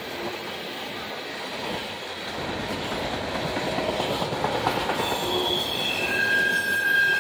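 Empty coal hopper cars of a long freight train rolling past with a steady rumble and rattle of wheels on rail. From about five seconds in, a high-pitched wheel squeal of several steady tones sets in.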